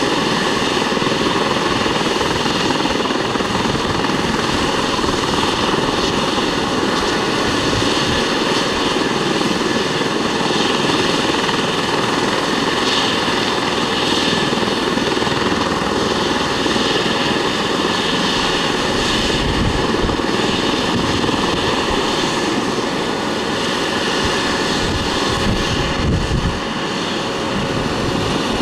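Twin-turbine Eurocopter EC135 T2+ helicopter running on the ground with its main rotor and Fenestron ducted tail rotor turning: a steady turbine whine over the rotor noise, dipping slightly near the end.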